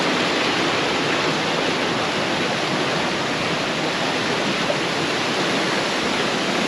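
Waterfall: water pouring over rock slabs in a steady, unbroken rush.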